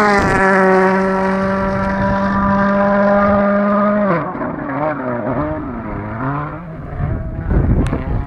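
VW Polo WRC rally car's turbocharged 1.6-litre four-cylinder engine at high revs passing by, its pitch dropping as it goes past, then holding a steady note as it pulls away. About four seconds in the revs fall and rise and fall again through the gears before the car fades out of earshot, and a few sharp clicks follow near the end.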